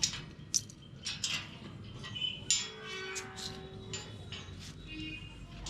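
An animal's drawn-out call, sliding down in pitch, about two and a half seconds in, amid scattered clicks and knocks.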